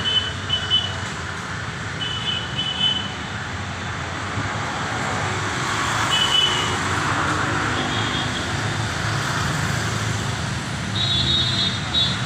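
Road traffic running steadily on a city street, with short high-pitched beeps every few seconds, some in pairs.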